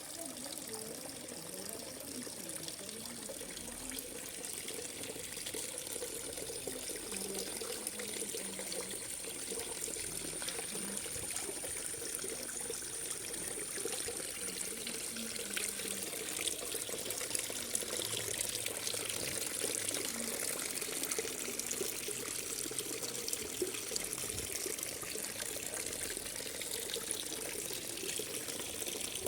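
Water trickling and splashing steadily down a small homemade tabletop waterfall fountain.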